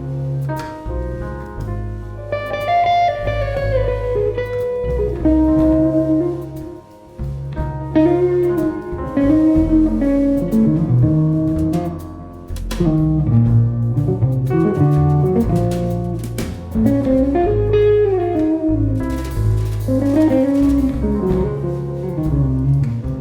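Jazz ensemble playing, a guitar carrying a winding melodic line over double bass and drums, with cymbal strokes throughout; the music dips briefly about seven seconds in.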